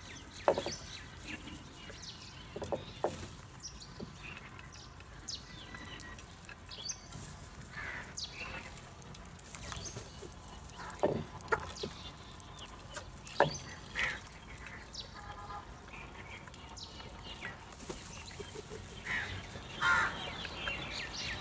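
House crows feeding at bowls: scattered sharp taps of beaks pecking against the bowls and a few short, harsh caws.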